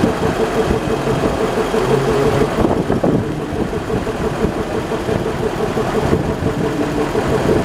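Diesel-hydraulic shunting locomotive D301 idling with a steady, evenly pulsing hum and low rumble, standing at the platform before departure.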